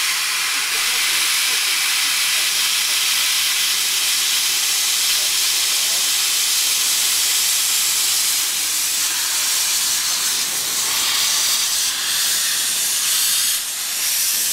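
Steady, loud hiss of steam escaping from a Hunslet quarry steam locomotive standing in steam, dipping briefly near the end.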